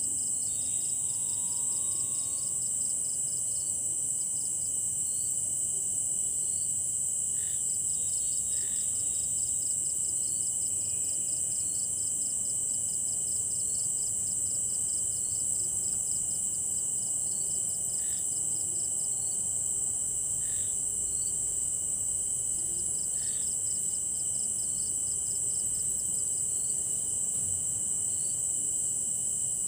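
Night insect chorus: a steady, loud high-pitched trill, with a rapidly pulsing chirp and a fainter steady tone beneath it, and a few short separate chirps now and then.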